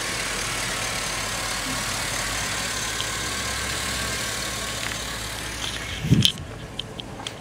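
A 5.3-litre LM7 Vortec V8 idling steadily under the open hood. About six seconds in there is a single loud thump, after which the engine is heard much more faintly, with a few small clicks.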